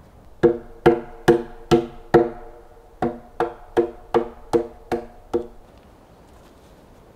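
Mallet blows on a hewn timber beam, each a sharp knock with a short ringing note from the wood, as a joint of the log frame is knocked together. Five blows at an even pace, a short pause, then seven more that grow fainter.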